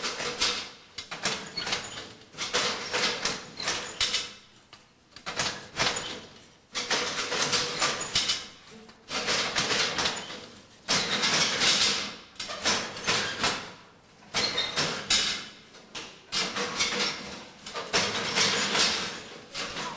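Handlooms weaving: repeated clattering strokes as the shuttle is passed and the beater knocks the weft home, about one stroke a second in an uneven rhythm.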